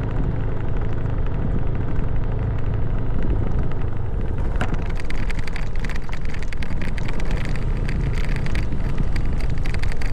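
Motorcycle being ridden along a road: a steady low engine drone under a dense rush of wind and road noise, crackling more in the second half.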